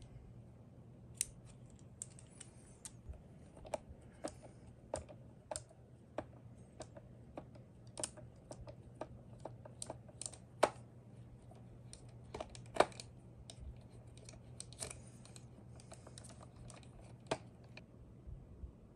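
Irregular sharp plastic clicks and taps of an HHKB keyboard being handled and taken apart, one or two a second, over a faint steady low hum.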